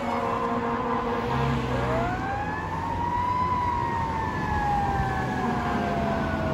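Fire engine siren wailing as it moves away: the end of one falling wail, then about two seconds in a new wail that climbs quickly and sinks slowly, with steady traffic and engine noise under it.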